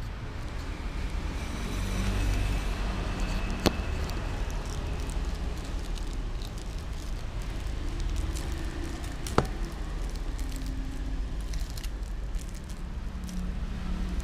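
Small aluminium-foil packet crinkling as it is opened and its powder shaken out, over a steady low background rumble, with two sharp clicks, one early and one past the middle.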